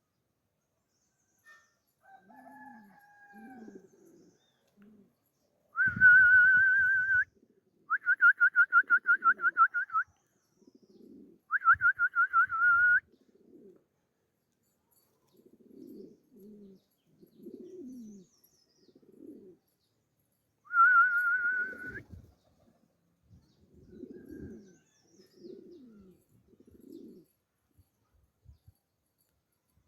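Pomeranian pouter pigeons cooing in low, repeated coos. Four much louder, higher warbling calls from another bird, one of them pulsing rapidly, cut in over them.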